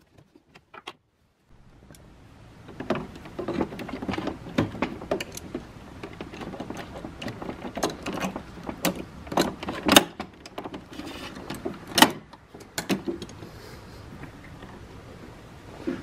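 Handling noise inside an opened Keurig K-Classic B40 coffee maker: clicks, rattles and scraping of plastic and metal as pliers pull back a hose clamp and a hose is worked off the small water pump. There are a few sharper knocks, the loudest about ten and twelve seconds in.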